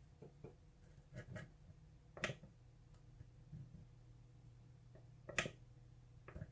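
Faint, scattered clicks of a lock pick and tension wrench working the pins of a pin-tumbler lock held at a false set. The clearest clicks come about two seconds in and again a little past five seconds.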